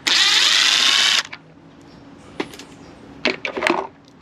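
A small power driver runs for just over a second, its pitch wavering as it backs out one of the small bolts that hold the turn signal light. A few light clicks of handling follow near the end.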